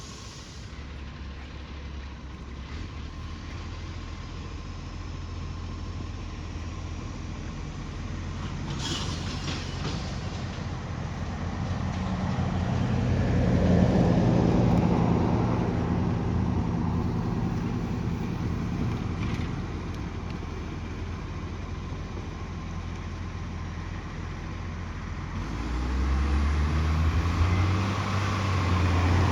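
Garbage truck's diesel engine running with an exhaust leak that gives it a raw, open exhaust note. It grows louder toward the middle, with a short hiss about nine seconds in, then revs up again near the end.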